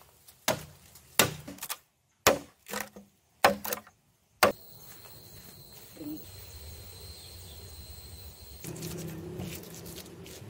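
About nine sharp chopping strikes into wood, some in quick pairs, over the first four and a half seconds. Then a quieter steady outdoor background with a thin high whine. Near the end, a stone pestle crushing chilies and shallots in a stone mortar.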